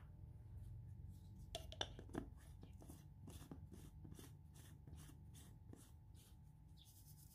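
Faint handling of a plastic blender jar holding powdered mushroom broth, with its blade base fitted: a run of soft scraping clicks about three a second and two louder knocks about two seconds in, over a low steady hum.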